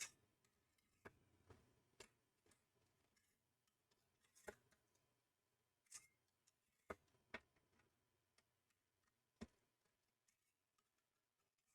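Faint, irregular clicks and taps of a screwdriver working the heat-sink screws, about one every second or so, over near silence.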